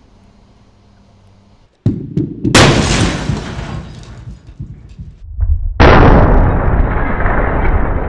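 Bowling ball smashing into a microwave oven: a loud crash with glass shattering about two seconds in, dying away over a few seconds, then a second loud crash and shatter near the end.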